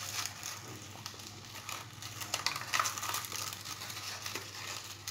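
Wilted, heat-softened banana leaves rustling and crinkling irregularly as a hand lifts and folds them back in a hot pan.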